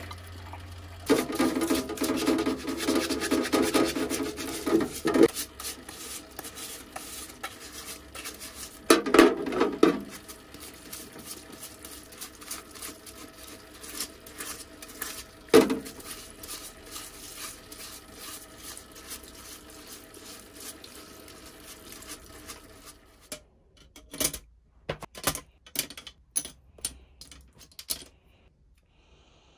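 Parts washer running while a grinder gear is scrubbed with its flow-through brush: steady wet scrubbing and rubbing, with a few louder knocks of metal against the tub. Near the end, a run of separate sharp metallic clicks as small bolts and nuts are set into a little wire basket.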